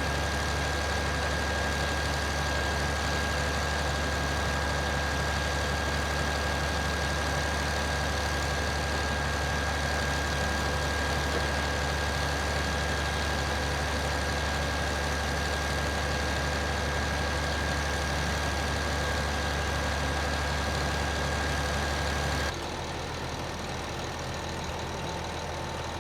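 Heavy truck diesel engine running steadily with a thin, steady high whine over it. A little before the end the whine stops and the running turns quieter and lower.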